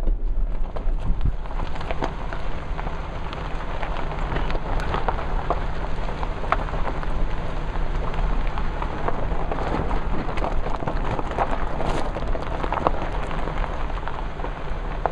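Tyres of a 1991 Toyota pickup rolling over loose gravel, a steady crackle of stones crunching and popping under the tread, with the truck's V6 engine running low underneath.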